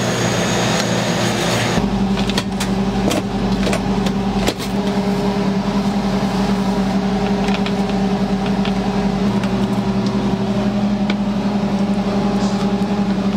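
A steady mechanical hum with a low drone, plus a few light clicks and taps in the first few seconds.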